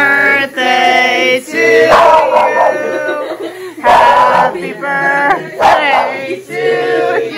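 A group of people singing loudly together in long held notes.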